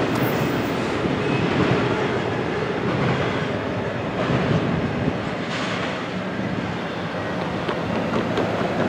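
Double-stack intermodal container cars rolling away on the rails, a steady noise of steel wheels on track.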